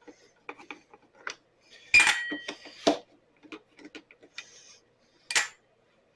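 Metal tools and small parts clinking and clattering on a workbench, with a loud ringing clank about two seconds in and another sharp clank near the end.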